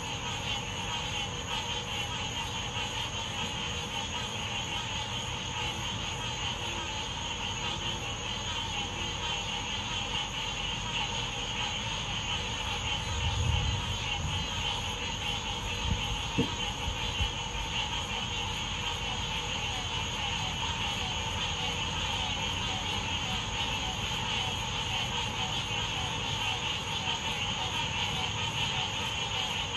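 A steady outdoor night drone with a high, even shrill hiss. Low distant rumbles come about halfway through, with one short thump among them.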